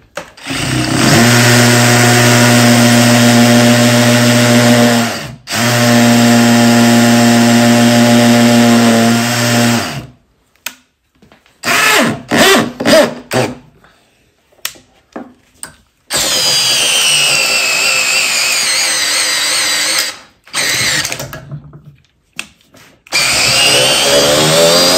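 Cordless drill driving a long lag screw into a block of laminated wood. The motor runs at a steady speed in two long stretches, then in a few short bursts. It then slows in a falling whine as the screw goes in deeper, and near the end it speeds up again in a rising whine.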